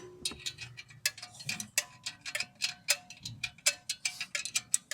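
Hand ratchet wrench clicking in quick, uneven strokes, about five or six sharp metallic clicks a second, as a bolt is turned.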